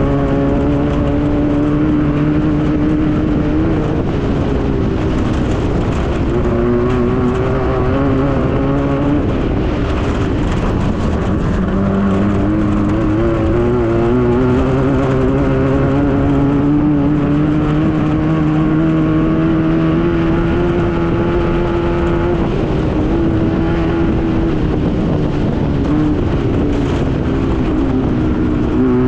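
Engine of a Class 9 VW-powered desert race buggy, an air-cooled Volkswagen flat-four, running hard under load. Its pitch climbs slowly and drops back several times, over a steady rough rumble.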